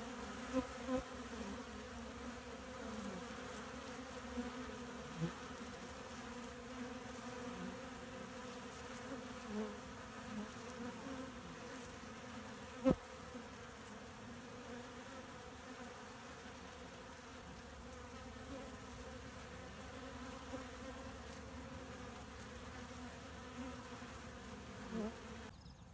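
A dense mass of honeybees buzzing at a hive entrance during a robbing attack: a steady hum, with single bees now and then buzzing loud and close. One sharp click about halfway through.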